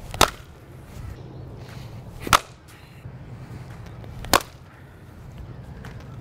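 Willow cricket bat striking the ball hard, three sharp ringing cracks about two seconds apart. The bat is a repaired one with a crack across the blade that is starting to open up again.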